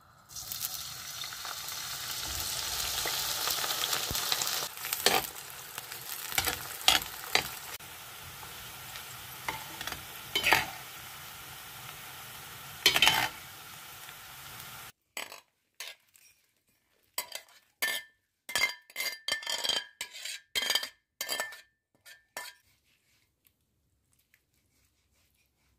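A pan of tomato-and-pepper menemen sizzling as it cooks, with a utensil stirring and knocking against the pan now and then. About 15 seconds in the sound changes abruptly to a run of separate sharp, ringing clinks and knocks, which stop a few seconds before the end.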